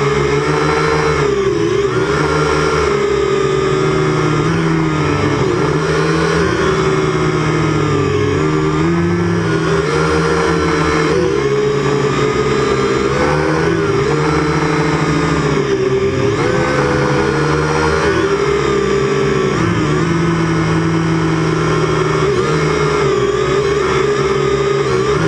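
Syma X8C quadcopter's motors whining in flight, several pitches held together and shifting up and down every second or two as the throttle changes.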